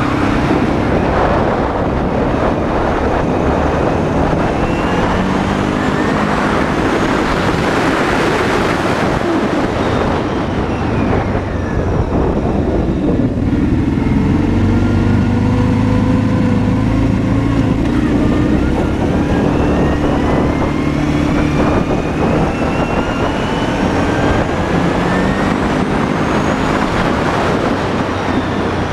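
Arctic Cat 650 V-Twin ATV engine running under way, its pitch rising and falling as the rider speeds up and slows, with a rush of wind noise over the microphone.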